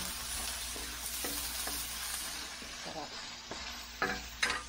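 Chopped onions sizzling in hot oil in a stainless steel wok, being sautéed until transparent, while a wooden spatula stirs them and knocks against the pan now and then. There are a couple of louder knocks near the end, after which the sizzle quietens slightly.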